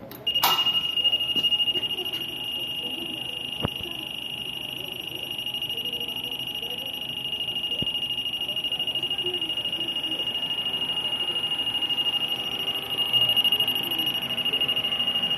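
The MHF300L machine is switched on at its push-button with a click and gives off a steady high-pitched whine that holds one pitch throughout. A second small click comes about three and a half seconds in.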